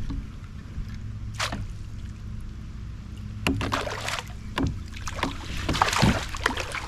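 Scattered knocks, clicks and splashy bursts from a kayak while a hooked bass is played and brought alongside for netting, over a steady low rumble. The strokes come thicker in the second half.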